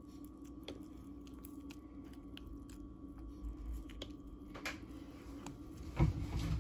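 Soft wet squishing and small clicks of fingers pressing roasted eggplant into beaten egg in a glass bowl, with a louder squelch and thump about six seconds in. A steady low hum runs underneath.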